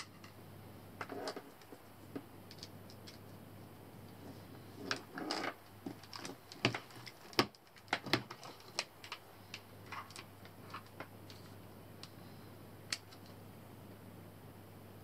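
Irregular small clicks, taps and rustles of hands handling a scope-mounted camera and its cables, densest in the middle and dying away a few seconds before the end, over a steady low hum.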